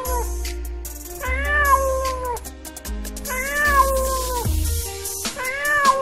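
Domestic cat meowing: one long meow, rising then falling, repeated about every two seconds over background music with a bass line and beat.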